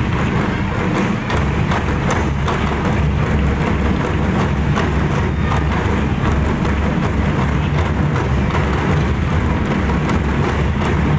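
A large drum ensemble playing together: dense, continuous drumming with many strikes overlapping, heavy in the low end.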